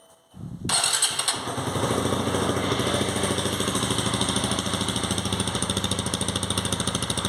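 Honda CG 160 motorcycle's single-cylinder engine starting up, catching within a second, then idling steadily with a rapid even pulse through a Roncar ML Competition 'estralador' aftermarket exhaust, a fairly open, loud pipe.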